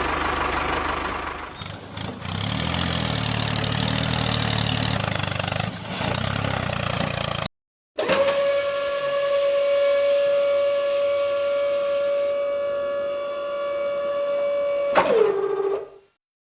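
Small motorised machinery in two edited segments. First a rough, noisy engine-like running sound, then, after a short cut, a steady high whine like a small electric motor, which drops in pitch as it winds down near the end.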